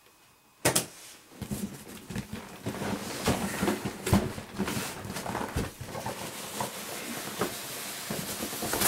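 Cardboard box being handled and its outer sleeve slid off: a knock just under a second in, then continuous scraping and rustling of cardboard with small clicks, ending in a sharp knock.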